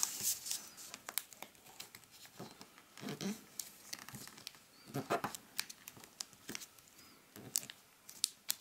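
Sheet of origami paper being folded and creased by hand: scattered crinkles and crackles as the flaps are pressed flat. The paper is slightly plasticky, coated stock, which makes a crinkly noise when folded.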